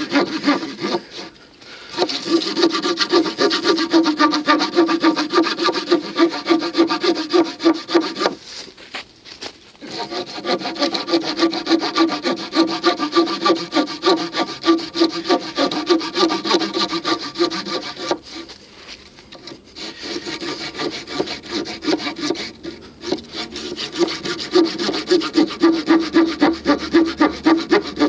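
Saw blade of a Victorinox RangerGrip 130 mm pocket knife cutting through a wooden pole in quick back-and-forth strokes, with the cut past its middle. The sawing stops briefly about a second in, around nine seconds in, and again around nineteen seconds in.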